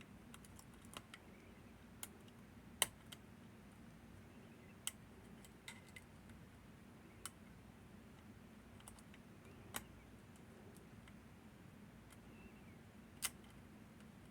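Sparse, irregular small metallic clicks and ticks of lock-picking tools working the levers of a Northern Telecom NE-22 six-lever lock, the sharpest about three seconds in and near the end, over a faint steady hum.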